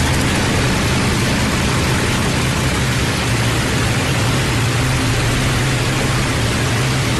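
Avro Lancaster bomber's four Rolls-Royce Merlin engines running with a steady drone: a dense, even rush of noise over a constant low hum.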